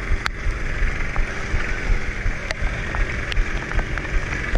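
A boat under way: a steady low rumble with an even hiss over it, and scattered short sharp clicks.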